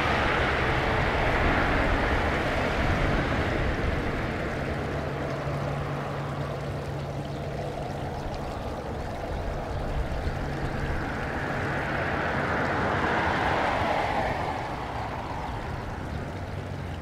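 Turbofan engines of a Boeing 787 airliner running at taxi power as it moves and turns on the ground: a steady jet roar that is loudest at the start, dips, swells again about three-quarters of the way through, then fades.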